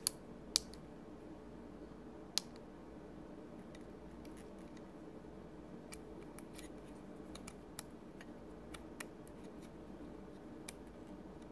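Small slide switches on a JYETech oscilloscope board clicked by hand: three sharp clicks in the first two and a half seconds, then scattered fainter clicks, over a faint steady hum.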